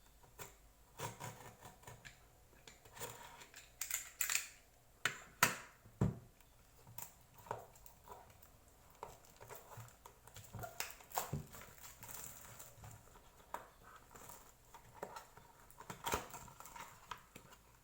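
Hands unboxing a perfume: scattered taps, clicks, scrapes and rustles of the box and packaging being handled and opened, loudest around four to six seconds in and again near the end.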